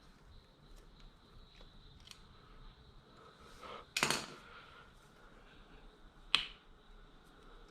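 Small engine parts being handled while the power valve actuator arm of a Yamaha YZ125 two-stroke is taken off: faint ticks, a short scraping rattle about four seconds in, and a single sharp click a little after six seconds.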